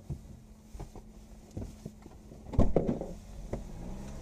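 Scattered knocks and thumps inside a stopped car's cabin over a low steady hum, with the loudest cluster of thumps a little past halfway.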